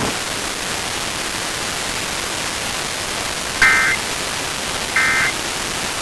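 Steady hiss of the broadcast feed, then two short bursts of warbling data tones about a second and a half apart: the Emergency Alert System end-of-message (EOM) signal that closes the test.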